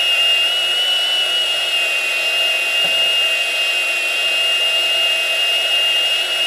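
Milwaukee M18 FPT114 cordless pipe threader running steadily under load, its die head cutting threads into a steel pipe. It makes a continuous high-pitched whine.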